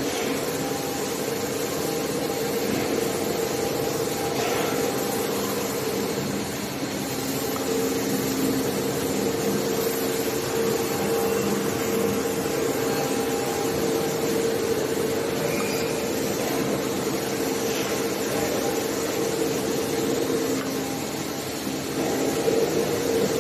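Steady machinery hum in a welding workshop: an even whirring noise with a constant mid-pitched tone, getting a little louder near the end.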